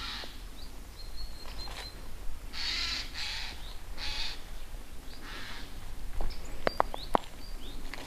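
Eurasian jays screeching: a series of about five harsh, rasping calls, with a few thin, high bird chirps and three sharp clicks near the end.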